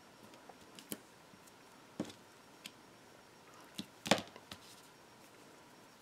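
Hands handling a roll of red-liner double-sided tape and a paper cutout: a few scattered soft clicks and taps, the loudest about four seconds in.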